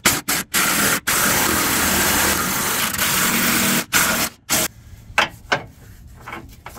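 DeWalt cordless impact wrench hammering the nut tight on the lower control arm's mounting bolt. It goes in a few short blips, then one long run of about three seconds and a final short burst. After that come a few quieter clicks as a hand wrench goes onto the fastener.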